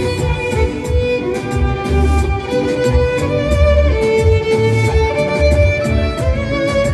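Violin playing a melody of held notes over a backing track with a pulsing bass line.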